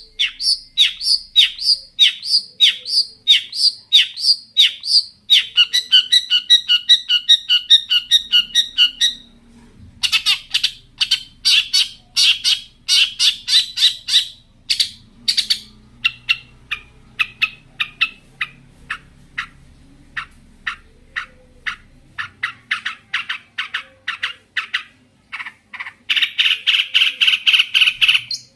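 Long-tailed shrike (cendet) singing a varied song full of mimicked phrases: a run of sharp falling notes about two a second, fast trills and rattling strings of notes, with a fast loud run near the end.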